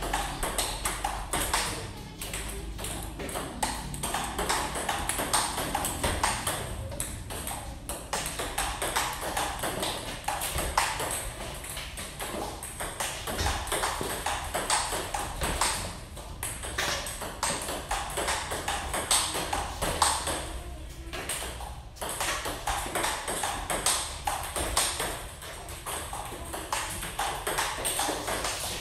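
Table tennis rally: the ball clicking back and forth off the paddles and the table in a steady run of ticks, with music playing underneath.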